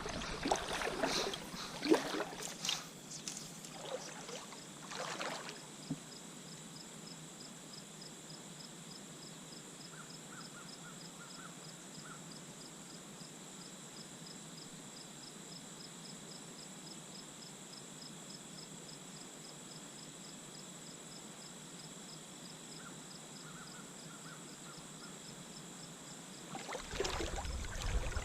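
Outdoor ambience: an insect chirping in an even rhythm, a few chirps a second, over a soft steady hiss. A few knocks and rustles come in the first seconds, and a low rumble rises near the end.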